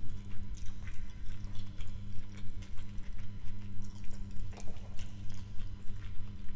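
Close-miked chewing and wet mouth clicks of someone eating jollof rice and chicken by hand, with fingers picking food off a plate. A steady low hum runs underneath.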